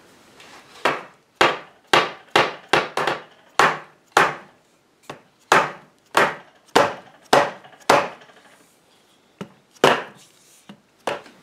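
Mahogany chair frame being knocked: a run of sharp wooden knocks, about two a second, with a short pause near the end. The joints are being worked to loosen them for re-gluing.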